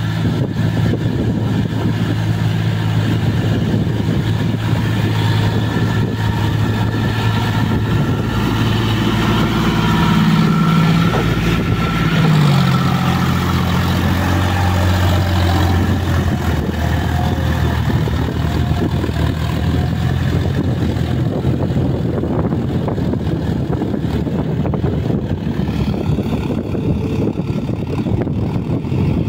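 John Deere 5042D tractor's three-cylinder diesel engine running steadily as it works through a flooded paddy field on cage wheels. It is a little louder in the middle as it passes close, and the engine note shifts about twelve seconds in.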